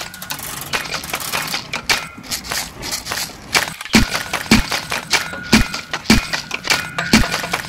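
A beat built from found sounds. For the first few seconds there is a busy patter of taps and scrapes. Then, from about four seconds in, deep thuds set a steady pulse a little under two a second, with short ringing tones and clinks layered over it.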